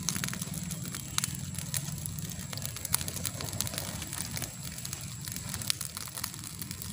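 Open fire of dry palm-leaf stems and leaves burning, crackling with irregular sharp pops over a low steady rush. One pop about three seconds in is louder than the rest.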